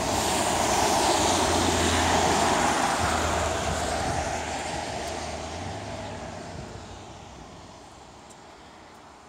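A vehicle passing by: a broad rushing noise that is loudest about two seconds in, then fades slowly away.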